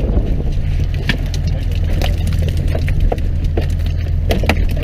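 Fishing boat's engine running with a steady low hum under scattered sharp clicks and knocks from a wire-mesh fish trap being handled and emptied over the deck.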